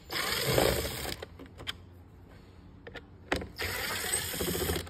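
Cordless drill-driver with a T10 Torx bit on a long extension whirring in two short runs of about a second each, backing out the screws that hold the mirror's camera mount.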